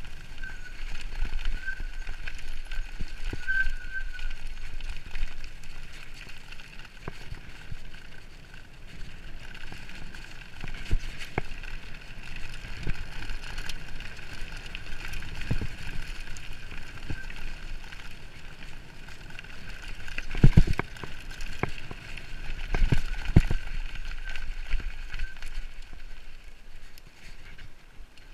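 Mountain bike riding fast down a gravel forest track: the tyres rolling over loose stones and the bike rattling with many small knocks, with two heavy jolts from bumps about twenty seconds in, a couple of seconds apart.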